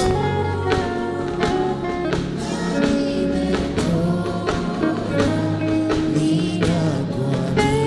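Gospel worship band music: held instrumental chords over a steady, regular drum and percussion beat.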